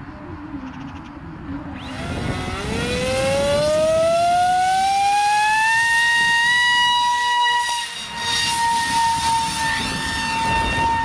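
Electric RC plane's Turnigy 3648 1450 kV brushless motor spinning a 6x5.5 propeller on a 6S pack, a high whine. It rises in pitch as the throttle comes up about two seconds in, then holds steady at full throttle. Near the end the sound wavers and dips.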